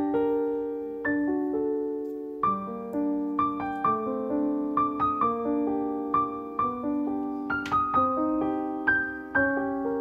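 Background piano music: a calm melody of notes and chords, each note struck and left to fade.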